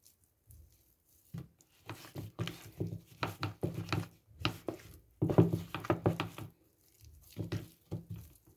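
Hands handling spice-coated raw chicken drumsticks in a bowl: a run of irregular short knocks and rustles that comes in clusters, with a faint steady low hum.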